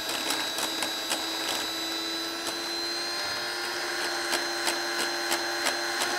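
Immersion blender motor running at a steady pitch as it emulsifies egg yolks and seed oil into mayonnaise in a glass bowl, with scattered light clicks over the whine.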